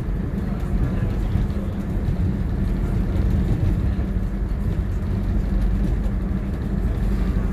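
Diesel multiple unit running along the line, heard from inside the driving cab: a steady low rumble of the underfloor engine and wheels on the rails.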